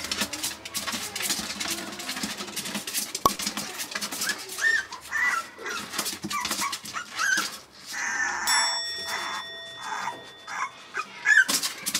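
Toy poodle puppy whining in short, high whimpers while it scrabbles and rustles against the plastic pen wall and newspaper, struggling while stuck in a hole in the pen. A steady bell-like ringing tone sounds for about two seconds past the middle.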